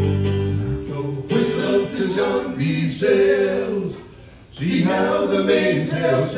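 A chord from the acoustic guitars and bass stops within the first second, then a few voices sing unaccompanied in phrases, with a short breath-gap near the middle.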